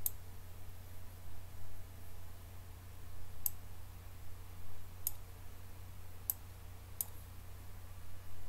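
Computer mouse clicking about five times at irregular intervals, over a steady low hum.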